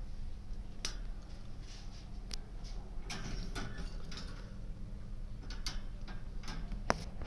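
Lovebirds moving about a wire cage: irregular sharp clicks and short scratchy rustles, with a steady low hum underneath.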